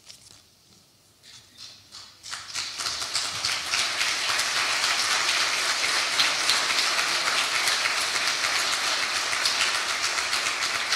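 A large congregation applauding: a dense, even clapping that starts about two seconds in and holds steady.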